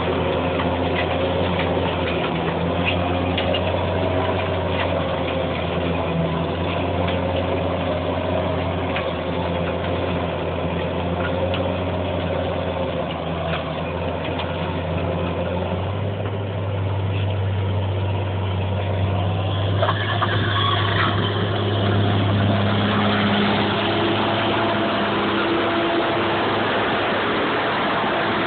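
Fendt Favorit 716 Vario tractor's six-cylinder diesel running steadily under load, pulling a three-metre Gaspardo cultivator through the soil, with scattered short clicks. The engine grows louder about two-thirds of the way through.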